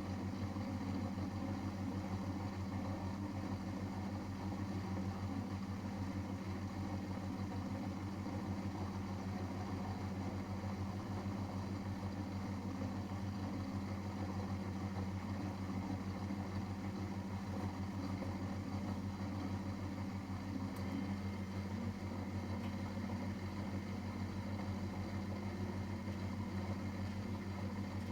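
Miele Professional WS5436 washing machine running partway through its wash cycle: a steady, unchanging hum.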